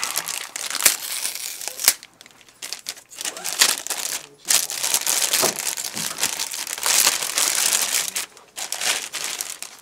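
Clear plastic bag crinkling and rustling as hands pull it open and off an audio recorder. It comes in uneven bursts, with a brief lull about two seconds in.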